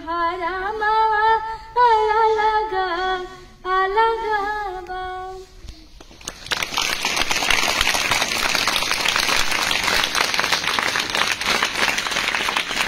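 A girl singing a Bhojpuri song unaccompanied into a microphone, in long, wavering held phrases, stopping about five and a half seconds in. A crowd of schoolchildren then starts clapping and keeps up a steady applause.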